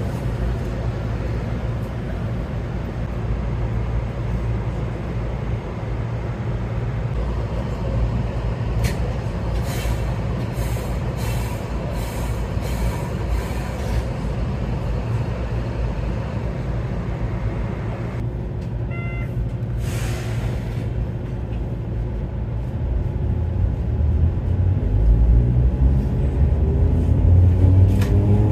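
Enoden electric train standing with a steady low hum and a few clicks, then a short beeping chime about two-thirds of the way through and a brief hiss. Near the end, the traction motors' whine rises in pitch and grows louder as the train starts off.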